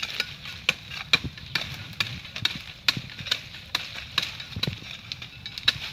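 A series of irregular sharp clicks and knocks, about two or three a second, over a low rustle.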